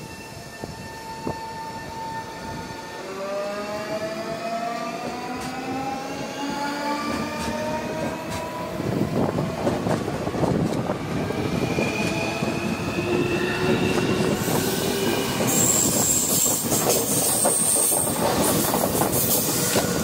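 Electric commuter train pulling away: the inverter and traction-motor whine rises steadily in pitch in several tones and grows louder as the train gathers speed. Rail and running noise builds underneath, and in the last few seconds comes a high-pitched squeal.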